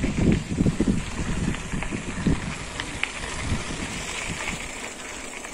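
Wind buffeting a body-strapped phone microphone while riding a mountain bike, over a steady rush of tyre and road noise with a few light clicks. The buffeting eases toward the end.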